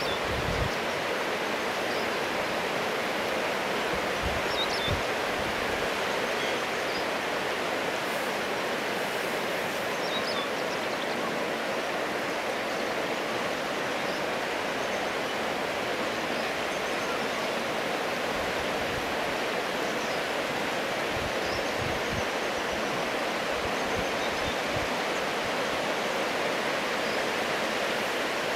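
Shallow river rapids running over a stony bed: a steady rush of water, with a few faint high chirps now and then.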